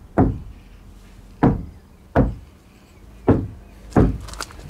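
Knuckles rapping five times, at uneven intervals, on the sheet-metal body panel of a VW T6 van: a knock test of how the panel resonates, as part of a sound-deadening check.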